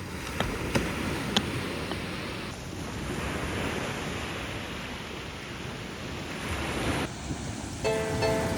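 Steady rushing outdoor noise of surf or wind-like character, with three sharp clicks in the first second and a half. Plucked-string music starts near the end.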